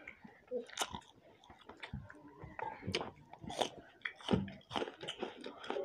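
People chewing with mouths open while eating roti and rice with tomato chutney: irregular wet mouth clicks and lip smacks, several a second.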